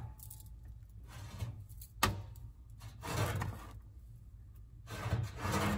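Slices of toasted whole wheat bread being lifted off a toaster oven's wire rack and set down on a cutting board: short scraping and rubbing sounds, with a sharp click about two seconds in.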